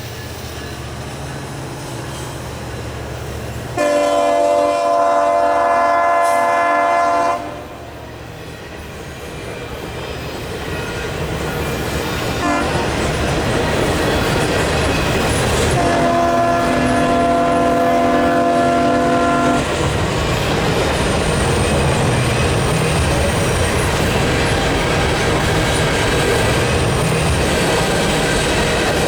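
Freight train led by three rebuilt EMD diesel locomotives sounding its horn in two long chord blasts, one about four seconds in and another around sixteen seconds in. Between and after them the locomotives' diesel rumble and the wheels' clatter on the rails grow louder and then hold steady as the train runs by.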